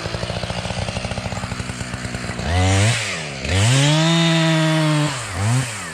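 Husqvarna 572 XPG chainsaw idling unevenly, then revved: a short blip, a longer rev held high for about a second and a half, another quick blip, and back to idle. The saw is new and not yet run in, which the owner says makes it sound somewhat different.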